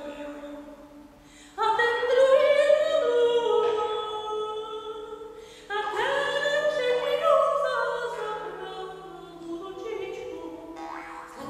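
Live vocal music: sustained singing in long phrases, two loud phrases entering suddenly about a second and a half and five and a half seconds in, over a steady low drone.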